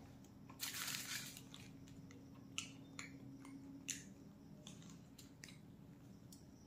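A person biting into and chewing a large wrapped roll, with sharp wet mouth clicks now and then. A crinkle of its paper wrapping comes about a second in.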